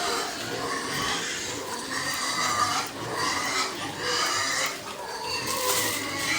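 Pigs calling in a pen: a continuous run of overlapping high-pitched calls, one after another, with a short hissy burst near the end.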